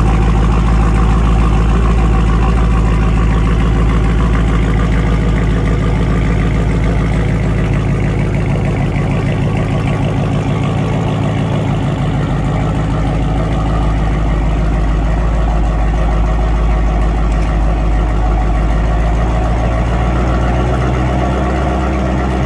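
Dodge Charger Scat Pack's 392 HEMI V8 running at a steady idle, heard through its exhaust as the car creeps forward off the ramps.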